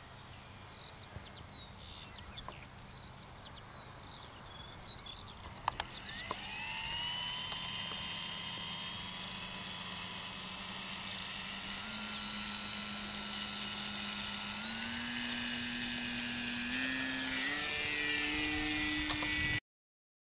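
Electric motor and propeller of an EasyGlider electric RC glider starting up about a third of the way in: a whine that rises quickly and settles, then steps up in pitch several times as the throttle is advanced, and cuts off suddenly near the end. Small birds chirp faintly before the motor starts.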